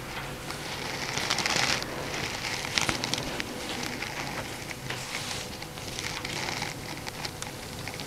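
Oiled hands sliding and kneading over bare calves during a massage: a slick, crackly rubbing of skin on skin that swells with each stroke. Small clicks come through here and there.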